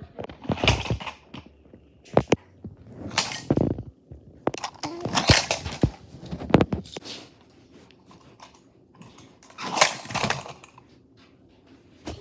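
Toy cars crashing into each other: repeated sharp clacks and short clattering, scraping bursts, with quiet gaps between the crashes.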